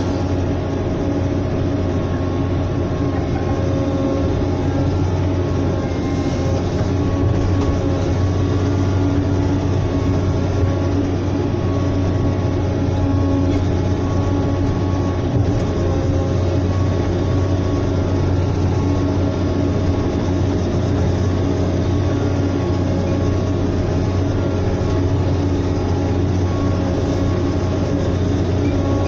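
Caterpillar 120K motor grader's diesel engine running steadily, heard from inside the cab.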